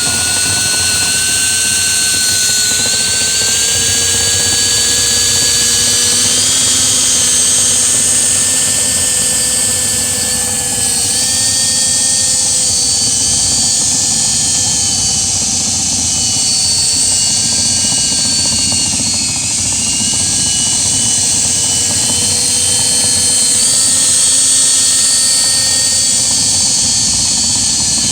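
Power drill motor running steadily at high speed with a whine that drifts slightly in pitch, spinning a rotary brush through a lint-clogged dryer vent duct, with a hissing rush of air over it.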